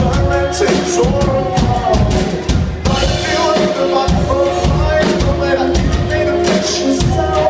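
A live indie-pop band plays a loud song with a steady drum-kit beat and bass drum under sustained instrument and vocal notes, heard through an audience recording in a club.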